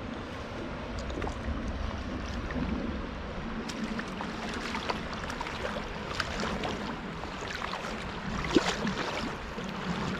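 Creek water running, with light splashing and a few small ticks.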